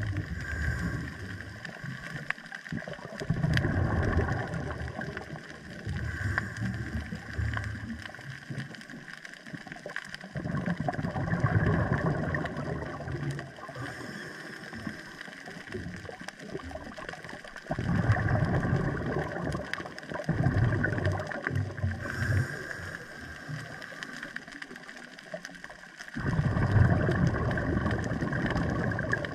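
Underwater scuba breathing through a regulator: exhaled bubbles surge and gurgle in four long bursts, about every seven to eight seconds, over a steady watery background.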